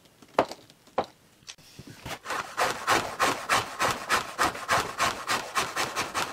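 A few sharp clicks, then from about two seconds in a hand rasp filing the edge of a wooden deck in quick, even scraping strokes, about three to four a second, to remove excess wood.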